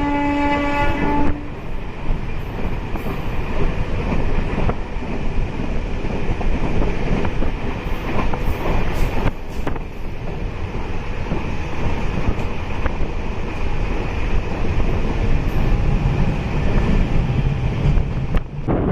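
Train horn sounding and cutting off about a second in, followed by the steady rumble and clatter of a MEMU train running on the rails, heard from on board.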